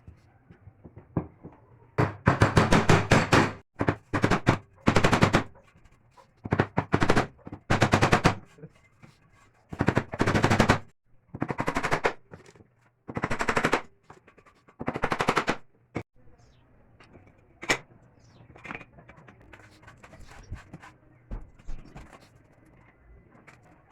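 A handheld power tool in the workshop runs in about nine short bursts, each a fast rattle of rapid impacts, the first and longest lasting well over a second. A sharp single click follows, then only faint scattered ticks.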